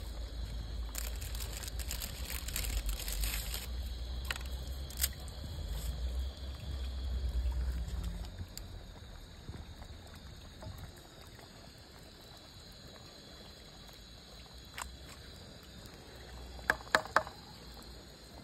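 Large pot of broth at a steaming boil as noodles go in and are stirred, with a low rumble over roughly the first eight seconds. A few sharp clicks, three in quick succession near the end, as the wooden spoon knocks the pot.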